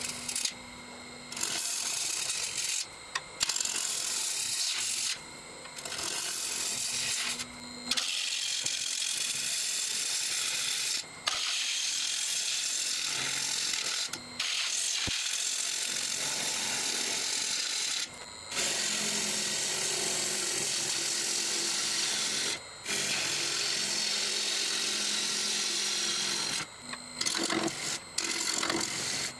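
A lathe gouge cutting into a spinning wood-and-resin bowl blank: a steady hiss of shavings over a faint low hum from the lathe, broken by brief dips every few seconds.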